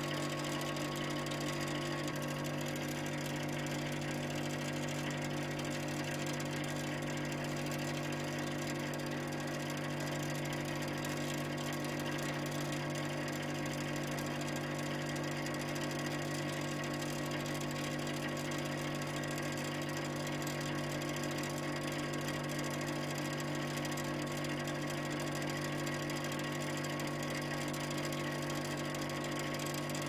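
Industrial refrigeration (cooling) plant running steadily: a constant mechanical hum made of several steady tones, the strongest a low hum, over an even hiss.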